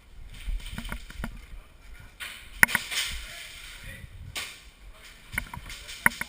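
Scattered sharp cracks, single shots from airsoft guns, loudest about two and a half seconds in and again near the end, over the rustle of gear and footsteps on the move.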